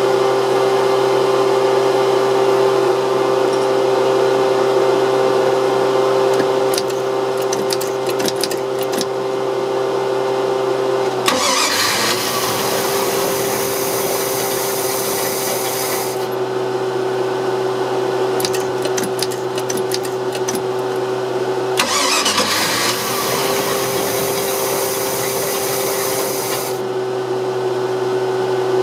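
OMC 5L inboard/outboard boat engine running with a steady hum. Twice, about 11 and 22 seconds in, its note dips and a louder rushing noise joins for about five seconds. The engine is hard to start and prone to stalling.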